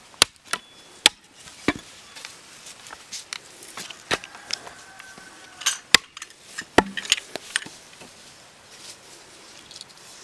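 Hatchet chopping thin wooden sticks laid across a tree-stump chopping block: a series of sharp chops at irregular intervals.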